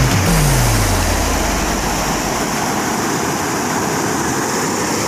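Waterfall water pouring over rock ledges: a steady, loud rushing. A deep falling tone from music fades out in the first second or so.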